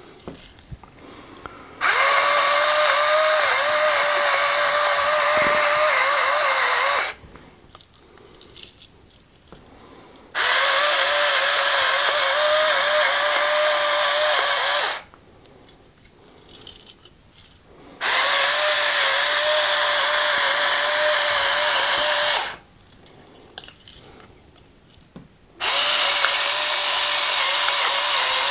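Flafster electric salt grinder's motor running in four bursts of about five seconds each, a steady whine, as it grinds pink salt at successively changed coarseness settings. Faint clicks come in the short pauses between the runs.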